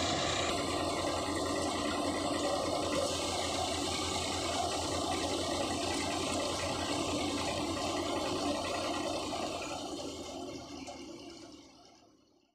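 Tractor-driven paddy thresher running steadily, its threshing drum whirring over the tractor's diesel engine as bundles of rice are fed in. The sound fades away near the end.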